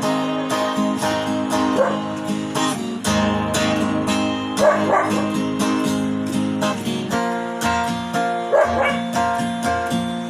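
Acoustic guitar music playing loud on a sound check, with a dog barking over it in short bouts about two, five and eight and a half seconds in.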